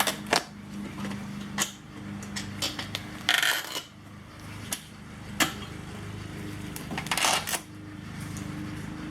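Sharp metallic clicks and pings as hog rings are popped off a bench seat's spring frame with side cutters, with two short scraping rustles between them, over a steady low hum.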